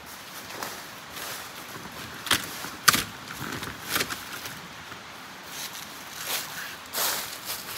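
Rustling and crunching in dry leaf litter with irregular knocks and clatters as folding camp chairs and a folding table are handled and set down; the sharpest snap comes about three seconds in.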